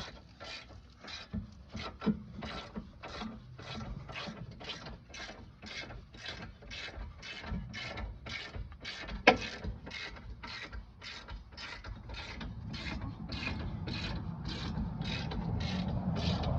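Hand ratchet wrench clicking in an even rhythm, about two or three clicks a second, as a rear brake caliper bolt is run in; one louder knock about nine seconds in.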